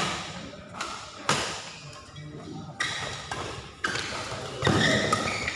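Badminton rackets hitting a shuttlecock in a rally: four sharp cracks, roughly one every second and a half, echoing in a large hall.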